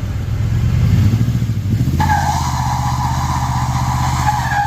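A vehicle engine running steadily, with a higher whine joining about two seconds in.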